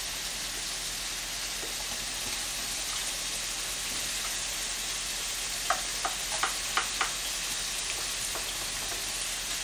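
Diced ham and scallions sizzling steadily in oil in a frying pan, with a handful of light clicks a little past halfway as a wooden spatula scrapes more diced vegetables off a plate into the pan.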